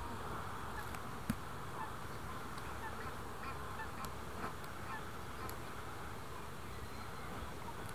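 Riverside outdoor ambience: a steady insect buzz with scattered short, faint bird calls, among them goose-like honks.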